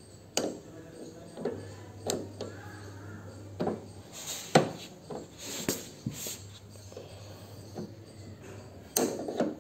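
Pliers clicking and knocking against the metal brake-light switch of a Bajaj Chetak scooter while its screw is worked loose: about seven sharp, irregular metal clicks, the loudest near the middle.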